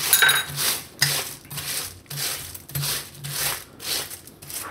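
Crinkly plastic sheet rustling and crackling under a hand rubbing ghee over it, in repeated strokes about two a second.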